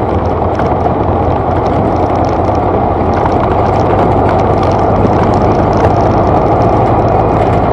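Birkin 7 (Super Seven replica) cruising on a road: a steady, even drone of drivetrain, tyre and wind noise heard from the car-mounted camera.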